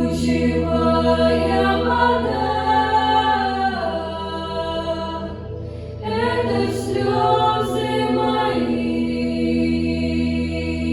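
Children's vocal ensemble singing in unison over a backing track with a sustained low drone, in two phrases with a short dip about five seconds in.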